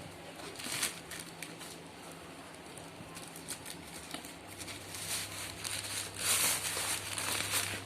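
Packaging rustling and crinkling in irregular bursts as a parcel of sandals is unwrapped, loudest near the end, with a steady low hum coming in about halfway.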